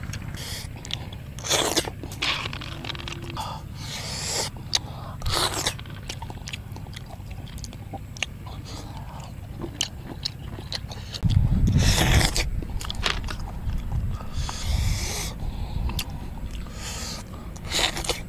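A person eating cockles and small octopus by hand: repeated short biting, chewing and sucking sounds, with small clicks of the cockle shells being handled. A louder low rumble of wind on the microphone comes a little past the middle.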